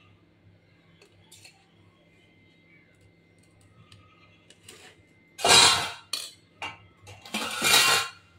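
A metal spoon scraping cooked rice out of a stainless steel pot onto a steel plate. There are a few light clinks at first, then two loud scrapes of metal on metal over the second half.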